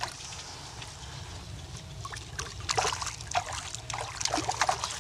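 A hooked black drum splashing and thrashing at the water's surface beside the kayak, in short irregular splashes that pick up about two seconds in.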